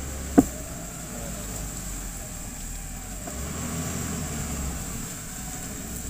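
Engine of an off-road 4x4, stuck in a river and hung up on a log, running with a low steady rumble that grows stronger for a moment past the middle. A sharp knock comes about half a second in.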